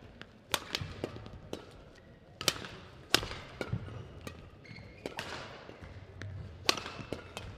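Badminton rally: racket strings striking the feathered shuttlecock, a sharp crack every second or so, unevenly spaced, with lighter taps of players' footfalls on the court between hits.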